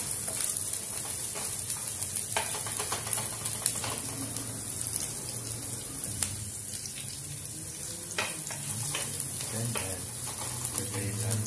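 Chopped garlic and onion sizzling in oil in a nonstick frying pan, with a wooden spatula scraping and knocking against the pan as they are stirred.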